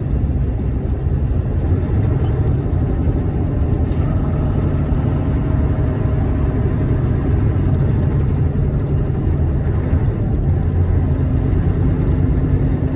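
Semi truck's diesel engine droning steadily under road and tyre noise, heard from inside the cab while cruising.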